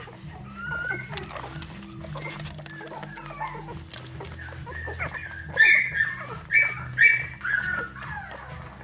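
Young Finnish Lapphund puppies whimpering and squealing while they nurse: faint squeaks at first, then a run of louder, high squeals past the middle.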